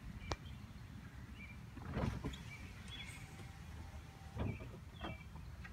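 2007 BMW 650i's power-operated soft top in motion: a steady low motor hum from the top's drive, with a few knocks about two and four seconds in as the top moves.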